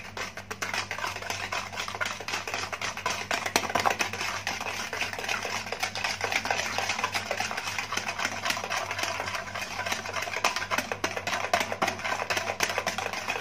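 Wire hand whisk beating curd, melted butter and sugar in a plastic bowl: a fast, steady run of clicks as the wires strike the bowl.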